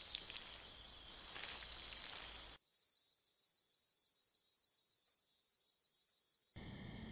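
Crickets chirping in an even rhythm, about two chirps a second, over a low background hum. The hum cuts out suddenly about two and a half seconds in, leaving only the chirping.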